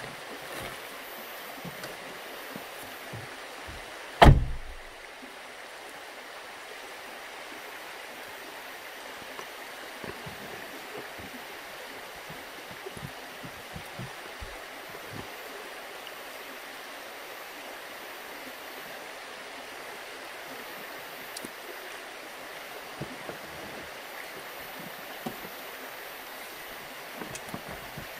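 Creek running steadily over rocks, with one loud thump about four seconds in as the Jeep's door is shut.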